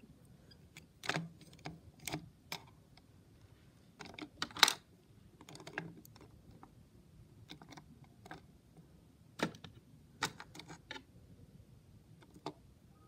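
Plastic parts of a Hexbug Witch Doctor BattleBot toy being handled and pressed: irregular clicks and taps, the loudest about four and a half seconds in.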